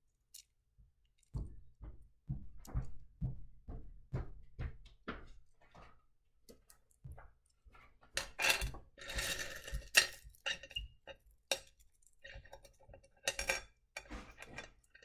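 Wet rough black opal pieces clicking and clattering against each other and the white bowl as a hand picks them up and sifts through the pile. A run of light knocks, with a busier rattle of stones being stirred about eight to ten seconds in.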